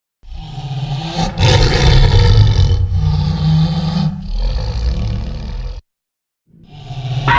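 Spinosaurus roar sound effect: one long, deep creature roar lasting about five seconds, growing louder a little over a second in. After a short gap, the next effect starts near the end.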